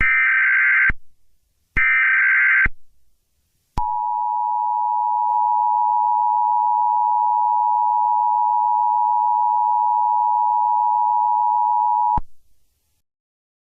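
Emergency Alert System signal: two short buzzing digital data bursts of the SAME header, then the EAS two-tone attention signal, two steady tones near 853 and 960 Hz sounding together for about eight seconds and cutting off abruptly.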